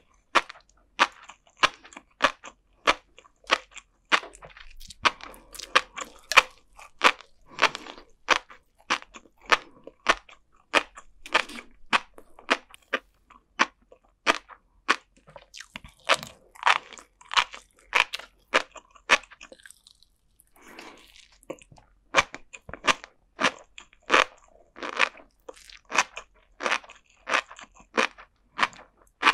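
Close-miked chewing of flying fish roe and sea grapes, the tiny beads popping in sharp, crisp clicks two or three a second, with a short pause about two-thirds of the way through.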